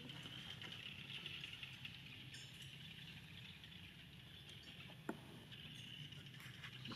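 Faint outdoor ambience: a steady high hiss over a low rumble, with one sharp click about five seconds in.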